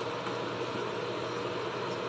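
Butter sizzling steadily as it melts into a hot frying mixture in a pan, with a faint steady low hum underneath.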